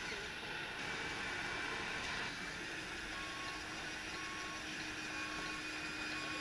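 Reversing beeper of a radio-controlled scale truck's sound module: short single-pitch beeps about once a second, starting midway, over a steady background hum.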